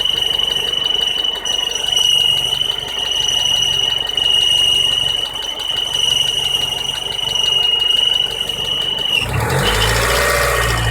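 1999 Honda Civic running with a steady, high-pitched squeal from the exhaust, where the down pipe and resonator pipe rub together metal on metal at a joint missing its gasket, shaken by engine vibration. About nine seconds in, the squeal cuts off and a louder, rougher engine sound takes over.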